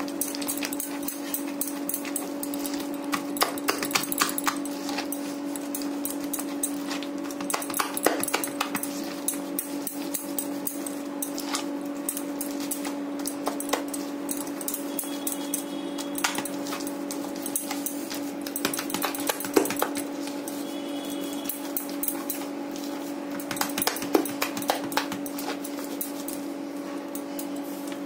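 Hand beating thick gram-flour batter in a glass bowl: quick wet slaps and clicks of fingers through the batter and against the glass, over a steady low hum.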